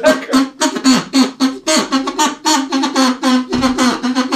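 Small handheld call blown like a duck call: a quick run of short, buzzy quacks on one steady pitch, about four or five a second.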